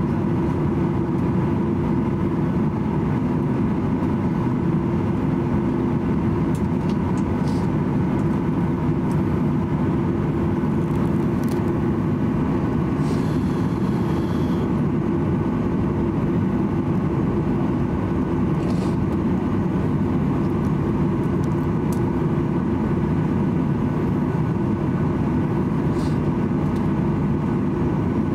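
Cabin noise of a Boeing 737-800 taxiing with its CFM56 engines at idle: a steady hum with a couple of steady tones in it, and a brief high hiss about halfway through.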